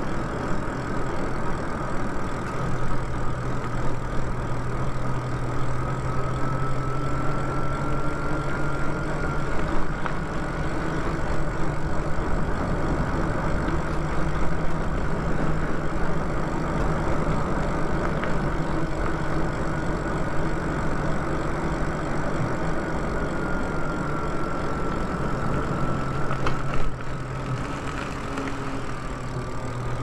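Electric bike cruising along a street: the motor's thin whine drifts slowly up and down with speed over a steady rush of tyre and wind noise. The sound drops a little near the end.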